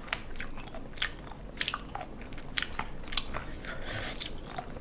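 Crunchy chewing of firm raw sea cucumber, a run of irregular crisp, wet crunches and crackles from the mouth.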